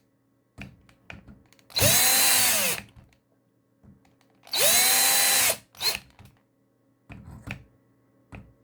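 Small power driver running in two bursts of about a second each, spinning up and winding down, driving M3 screws into a wheel mounting hub. Light clicks of handling between the bursts.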